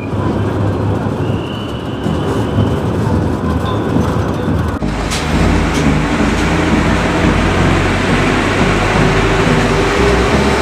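City bus engine and road noise heard from inside the moving bus, a steady rumble and rattle with traffic around it. The sound changes abruptly and gets a little louder about five seconds in.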